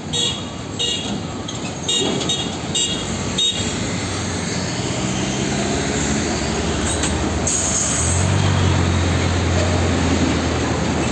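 Diesel engine of a fuel tanker truck idling close by, its steady low drone growing stronger about eight seconds in. A series of short high squeaks comes in the first three seconds, and a brief air hiss sounds just before the drone grows.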